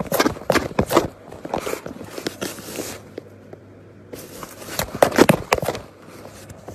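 Cardboard box crackling and scraping in irregular bursts as a cat moves about inside it, with a lull about three seconds in and another run of crackles after about four seconds.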